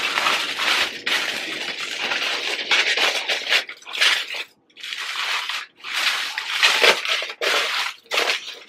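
Aluminium foil crinkling as it is pulled open from around a loaf of bread: a continuous crackle for about four seconds, then shorter separate bursts of crinkling.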